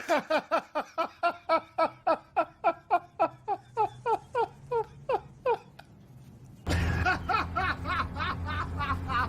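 A run of laughter, about four 'ha's a second for five seconds, each dropping in pitch, the run slowing and fading. About two-thirds of the way through, a louder stretch of laughing starts suddenly over a steady low hum.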